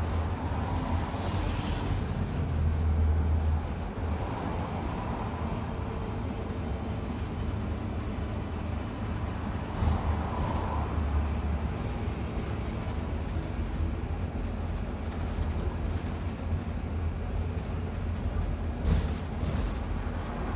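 A bus travelling along, with its engine and road noise making a steady low rumble and a couple of brief knocks or rattles, one about halfway through and one near the end.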